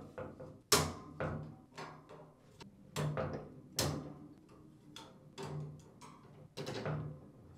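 Plastic clicks and taps with light rattles of a wire dishrack as the upper dishrack adjuster's clips, tabs and cover are pried and unclipped from the rack: about ten separate sharp clicks and knocks, irregularly spaced.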